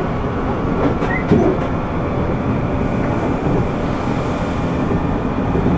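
Interior running sound of a JR 205 series 600 subseries electric commuter train at speed: a steady rumble of wheels on the rails with a faint hum and a few light clicks.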